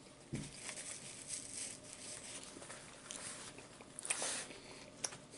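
Faint rustling of a paper napkin and the paper sandwich wrapper being handled, with a louder rustle about four seconds in.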